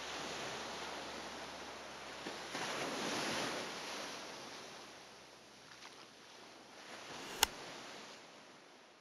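Rushing surf ambience, swelling about three seconds in and then fading out near the end, with one sharp click a little before it fades.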